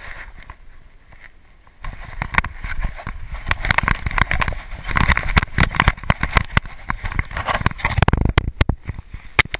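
Handling noise on a GoPro HD camera being jostled: dense knocks and rubbing over a low rumble. The noise turns busy and loud about two seconds in.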